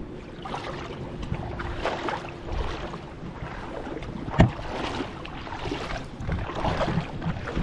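Shallow water splashing and sloshing around a person wading, with wind on the microphone. There is one sharp knock about four and a half seconds in.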